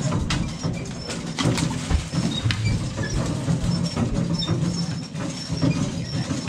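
A low, steady engine drone on a fishing boat deck, with scattered knocks and a heavier thump about two seconds in as fish-box lids are handled and a fish is put away.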